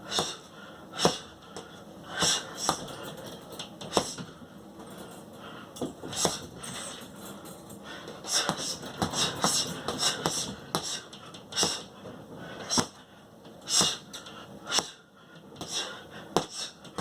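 A boxer's short, sharp hissing exhales in a quick, irregular rhythm, each with a soft knock, as when breathing out on every punch.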